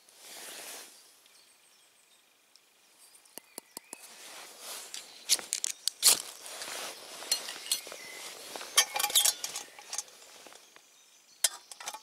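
Ferrocerium rod struck again and again to throw sparks onto fuel in a small steel army stove: a run of sharp scrapes through the middle, after a brief pour of fuel from a small bottle at the start. Near the end a steel canteen cup clinks as it is set on the stove.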